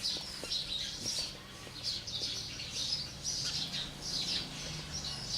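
Small birds chirping repeatedly in the background: short, high twittering calls, one after another.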